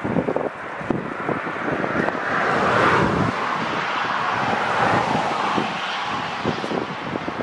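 Jet engine noise from an Airbus A380 rolling along the runway, swelling to a peak about three seconds in and holding up until about five seconds before easing, with gusty wind buffeting the microphone throughout.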